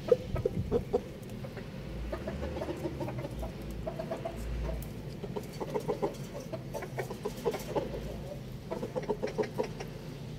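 Chickens clucking in short runs of quick clucks, with pauses between the runs.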